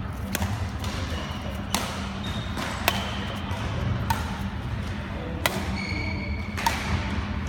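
Badminton rally: racket strings striking a shuttlecock, about six sharp hits a little over a second apart. There are short high squeaks of shoes on the wooden court between some hits, over a steady low hum.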